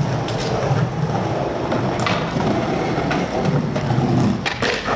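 Skateboard wheels rolling over pavement with a steady rough rumble, broken by a few sharp clacks of the board, the loudest near the end.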